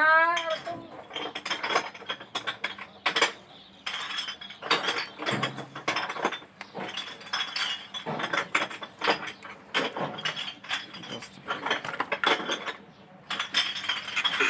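Irregular clicking and clinking of small metal parts and connectors being handled while a replacement speaker is wired to a CRT TV, with a short rising tone right at the start.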